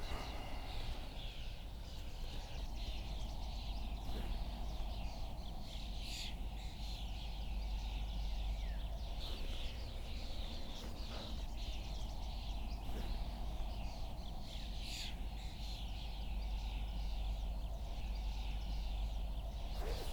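Birds calling and singing around a pond, short chirps and trills coming every second or two, over a steady low background rumble.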